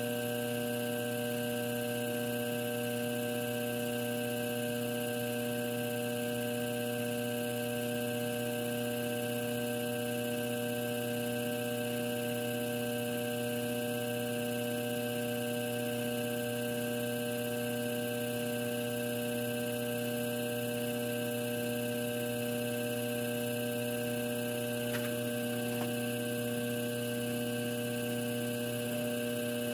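Electric potter's wheel motor humming at one steady pitch as the wheel head spins.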